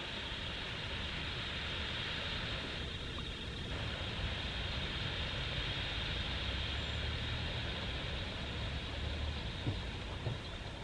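Steady rushing hiss of a huge flock of semipalmated sandpipers in flight, wheeling low over the water, over a low rumble of wind on the microphone.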